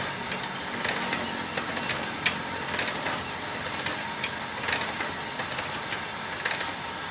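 Homemade cylinder-honing machine running, its abrasive honing stones working inside an engine block's cylinder bore while the head is stroked up and down by a hand lever. It makes a steady mechanical running noise with a low hum, broken by irregular light clicks and knocks.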